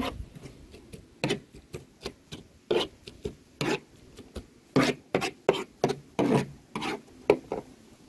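Kitchen knife chopping a pile of diced onion, tomato and sweet pepper on a hard surface. The blade knocks down at an irregular pace, some fifteen strokes, several in quick pairs, with rubbing scrapes as the blade pushes the pile together.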